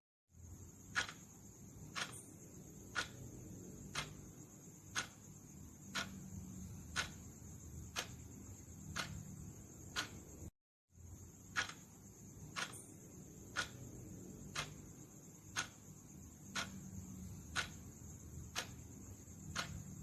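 Clock ticking about once a second over a steady hiss. The sound cuts out briefly twice, about ten seconds apart.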